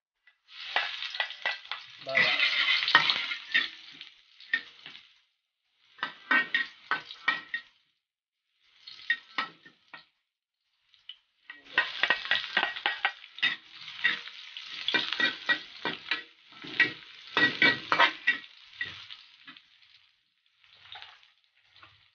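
Chopped onions and garlic sautéing in a wok, sizzling in bursts with short pauses as they are stirred. A metal spatula scrapes and taps against the pan.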